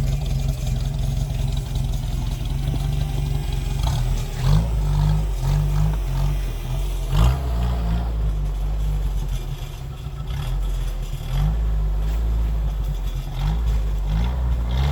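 Off-road 4x4's engine running and revving up several times, with a few sharp clunks in the middle.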